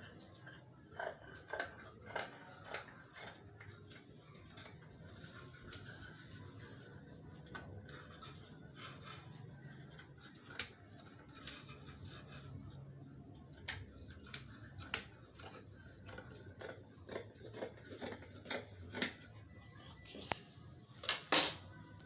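Dressmaking shears snipping through embroidered lace in irregular cuts, the loudest snips near the end.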